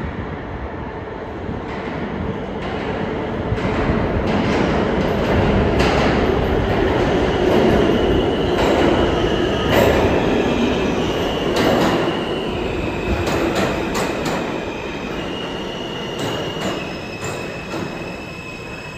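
An R160 subway train pulls into the station: its rumble grows louder as it approaches, with sharp clacks over the rails. Then, as it brakes and slows past the platform, the wheels and brakes squeal in high, shifting tones.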